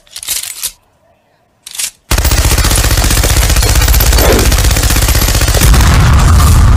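Machine gun sound effect: two short clatters, then about two seconds in, loud sustained rapid automatic fire that grows deeper and heavier near the end as an explosion joins it.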